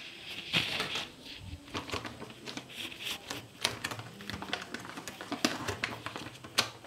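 Metallised anti-static bag holding an LCD panel being handled and pulled from its cardboard box, crinkling with a string of irregular sharp crackles.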